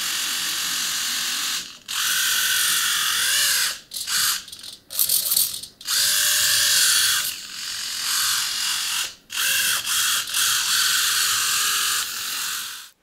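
Continuous-rotation MG90S micro servos driving a tiny 3D-printed tank's Lego tracks: a high geared whine that stops and restarts several times, its pitch wavering as the speed changes, and cuts off shortly before the end.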